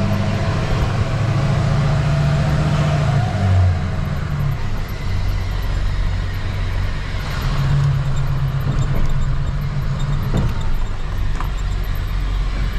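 Tow truck's engine running, a low hum that shifts up and down in pitch a few times as the revs change.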